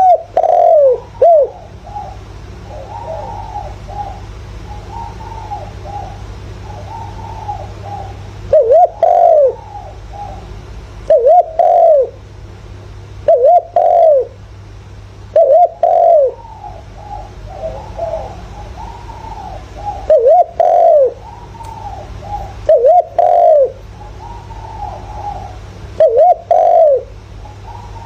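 Spotted dove cooing: loud, repeated coo phrases every two to three seconds, with fainter cooing between them, over a steady low hum.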